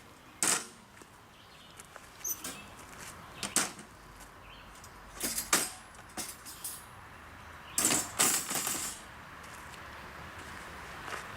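Camping gear being handled and packed: scattered sharp clicks and light metallic clinks, with a burst of clatter a little after the middle.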